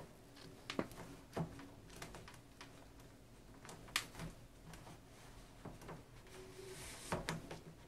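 Plastic clicks and light scraping as the accordion side panel of a small window air conditioner is slid onto the unit's side rail: a handful of sharp clicks, the sharpest about four seconds in.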